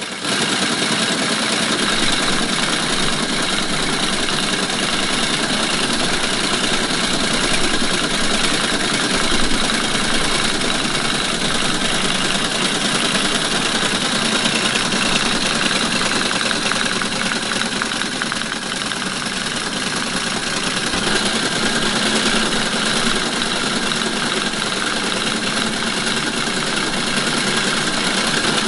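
Teletype ASR 33 printing a received message and punching it onto paper tape at the same time: a loud, steady mechanical clatter of the typing mechanism and tape punch at 110 baud, about ten characters a second, which starts abruptly and runs on without a break.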